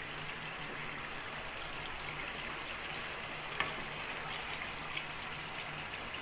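Tomato masala sizzling steadily in oil in a frying pan as beef meatballs are added, with one light tap about three and a half seconds in.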